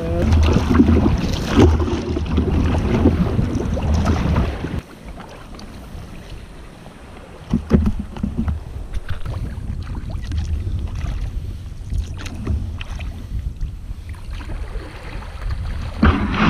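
Sea kayak paddling: wind buffeting the microphone and the paddle blades splashing through the water. About five seconds in it drops suddenly to quieter water sounds, with a few small knocks and clicks from gear being handled on the deck.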